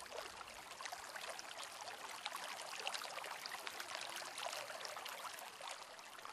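Faint, steady water ambience made of many tiny drops, like light rain or a trickling stream.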